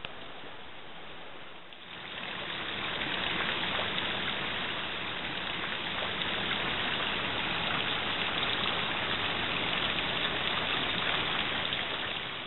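Steady rushing hiss of running water, stepping up in level about two seconds in and then holding even.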